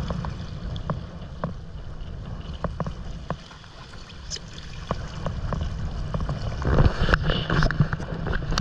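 Water slapping and splashing against the hull of a stand-up paddleboard in choppy sea, under a steady low rumble of wind on the microphone. The splashing grows louder about seven seconds in.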